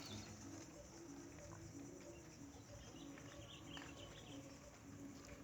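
Near silence: faint outdoor ambience with a faint, evenly repeated low bird call.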